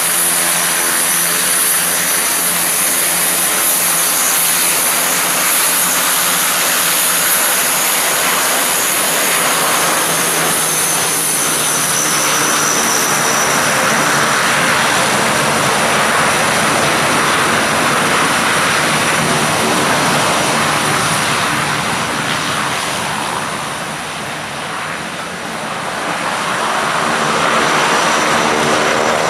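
Antonov An-26 twin-turboprop transport taxiing, both turboprop engines running steadily: a propeller drone with a high, steady turbine whine over it. The sound dips briefly about 24 seconds in and then comes back up.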